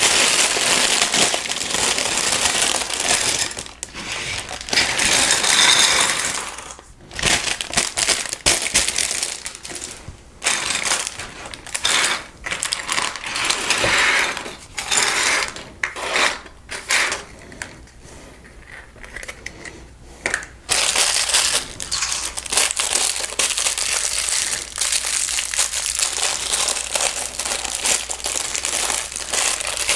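A plastic Lego parts bag crinkling as it is opened and handled, with small plastic bricks clattering and clicking as they spill out and are sorted through by hand. The noise comes in irregular stretches with brief pauses between them.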